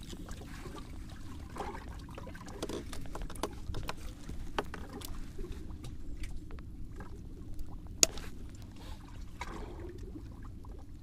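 Water sloshing and trickling around a small fishing boat over a low steady rumble, with scattered light clicks and knocks; one sharp click about eight seconds in is the loudest sound.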